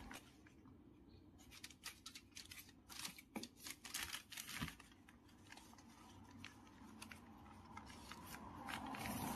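Faint, scattered clicks and crinkles of aluminium foil tape being handled and pressed down over refrigerator tubing.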